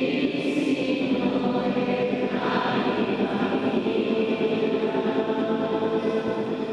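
A choir singing a sacred hymn in long, held notes.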